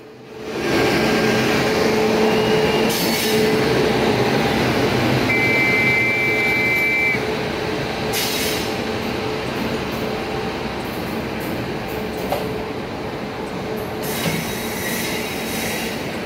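Long-distance passenger train, the LTT–Karaikal Express, rolling into the platform and slowing, its coaches running past with a steady rumble. A high steady tone lasts about two seconds midway, and the sound eases a little after that.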